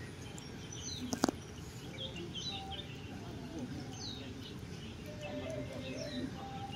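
Small birds chirping with many short, quick calls over steady low background noise, with one sharp knock about a second in.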